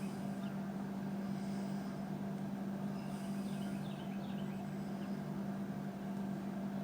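A steady low mechanical hum, like a distant engine, with a few faint bird chirps about three seconds in.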